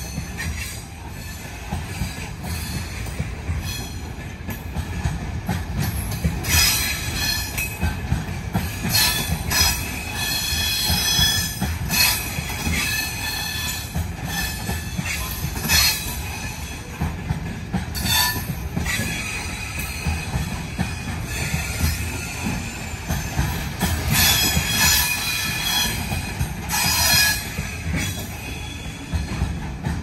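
Container freight train rolling past: a steady low rumble of wagon wheels on the rails, with high-pitched metallic squealing from the running gear that comes and goes, strongest about a third of the way in and again near the end.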